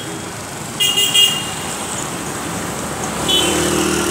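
Street traffic with short vehicle-horn toots, two quick blasts about a second in and another just after three seconds.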